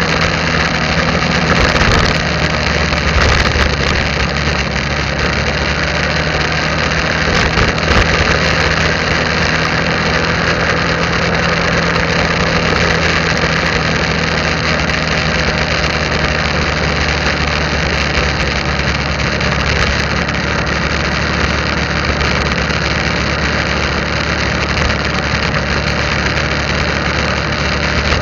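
Motorbike engine running steadily while riding at road speed, under a constant rush of wind and road noise on the microphone.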